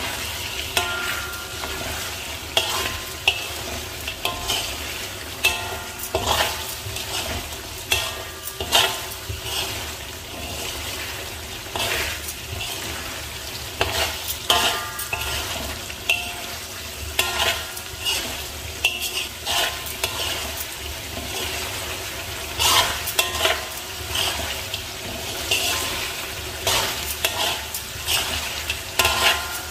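A metal spatula stirring and scraping mutton pieces in thick masala against a metal wok, in quick irregular strokes, over a steady frying sizzle as the gravy is cooked down.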